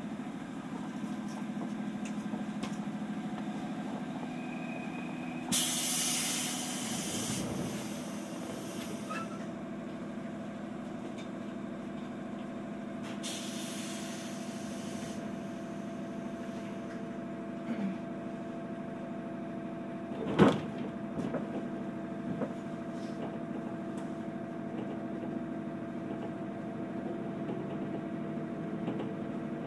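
JR 211 series electric train standing still, its onboard equipment giving a steady hum. Two loud bursts of air hiss about seven seconds apart, each lasting about two seconds, and a single sharp thump about twenty seconds in.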